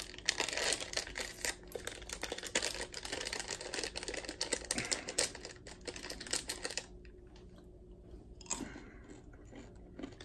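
Plastic candy wrapper of a bag of peanut M&M's being torn open and crinkled by hand. Dense crackling that eases off about two-thirds through, then returns briefly near the end as candies are shaken out.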